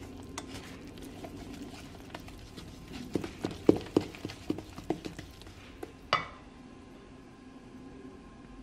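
Wooden spoon stirring wet pancake batter in a stainless steel bowl. About three seconds in comes a quick run of knocks as the spoon strikes the bowl, then one louder ringing clink of the metal bowl.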